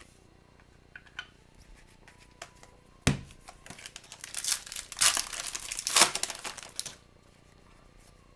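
Plastic-foil wrapper of a hockey card pack being torn open and crinkled, about three seconds of crackly tearing that follows a sharp tap about three seconds in. A few light clicks of cards being handled come before it.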